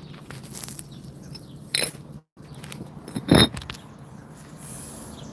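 A few scattered knocks and light clinks over low background noise, the loudest knock about three seconds in, with a brief dropout just after two seconds.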